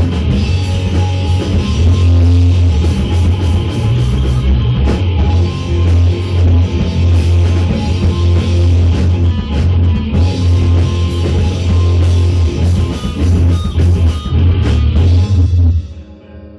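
Rock music played loudly on guitar and drum kit over a heavy bass line, dropping away near the end.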